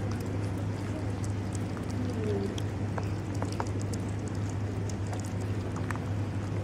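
Kittens chewing and smacking on soft chunks of cooked meat, a scatter of small wet clicks, over a steady low hum.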